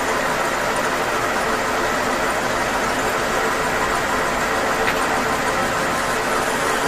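Metal lathe running steadily while its cutting tool faces a spinning flange: a continuous mechanical hum of motor and gearing mixed with the noise of the cut.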